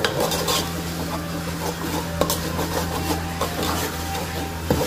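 Metal spoon stirring thick, cooked-down tomato masala in an aluminium pot, with scattered small clicks and scrapes against the pan over a steady low hum.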